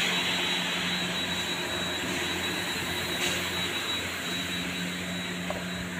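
Steady machine drone: a constant low hum under an even hiss, with a faint high tone.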